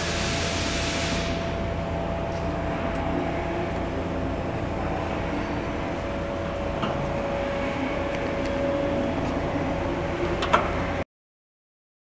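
Steady machinery hum and rumble with a few steady tones, and a brighter sliding hiss in the first second as the plastic modular conveyor belt is drawn across its stainless steel frame. There is a sharp click near the end, and the sound cuts off abruptly about 11 seconds in.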